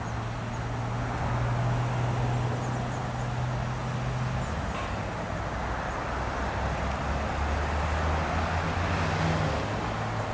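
Motor vehicle engine running with steady road noise. Its low hum drops in pitch about four and a half seconds in.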